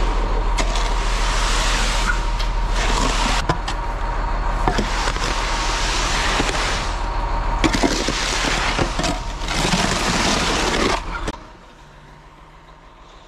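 Ready-mix concrete truck running, with wet concrete sliding and scraping down its steel chute as it is pulled along with a hoe. There is a steady low engine hum under swells of rushing, gritty noise. About 11 seconds in it cuts off abruptly to a faint steady hum.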